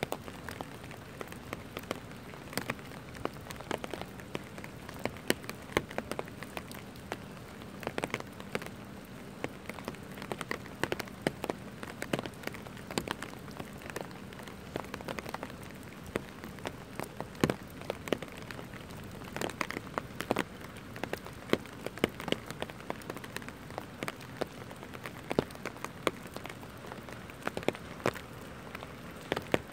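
Steady rain falling on wet pavement, with many sharp taps of individual drops striking close by at irregular intervals.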